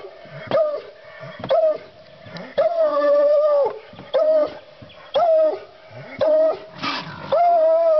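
Bluetick Coonhound baying at a raccoon in a trap, signalling the coon is caught. It gives about one call a second, mostly short chops with a few drawn-out bawls, each held on one pitch and dropping off at the end.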